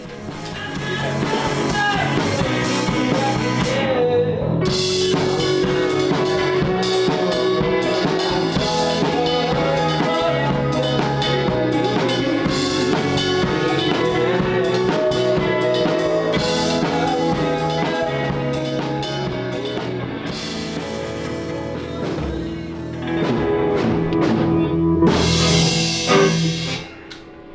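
Indie rock band playing a song in rehearsal: drum kit, electric guitars and singing, with the lead guitar run through a delay pedal that is a little bit loud. The band stops suddenly near the end.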